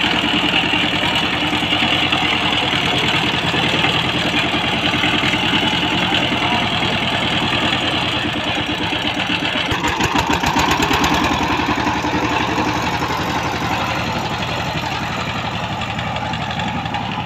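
Single-cylinder diesel engine of a two-wheel power tiller running with a steady, even beat of firing pulses. About ten seconds in, the beat becomes heavier and more distinct as the tiller moves off across the field.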